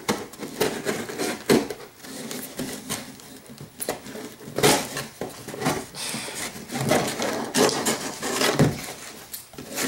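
Knife cutting and scraping through the packing tape of a cardboard box in irregular strokes, with a few sharper scrapes or knocks.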